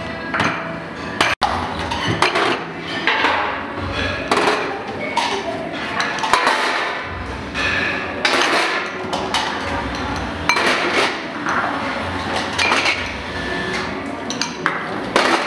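Dishes and metal utensils clattering, with irregular clinks and knocks.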